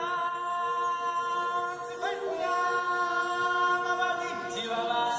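Stage-show music with a choir of voices singing long held chords. The chord changes about two seconds in and again near the end.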